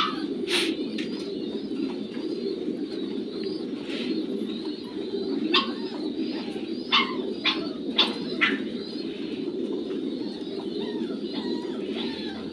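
A flock of domestic pigeons cooing continuously, many overlapping coos making a steady low murmur. A few short, sharp clicks sound now and then.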